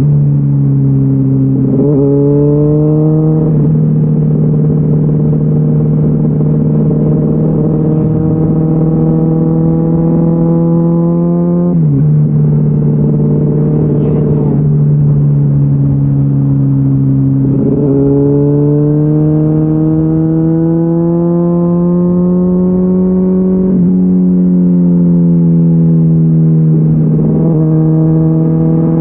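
Honda CBR600RR's inline-four engine through a GPR Deeptone exhaust with the dB-killer baffle removed, under way. The exhaust note climbs slowly, and every several seconds its pitch jumps or dips sharply as the gears change.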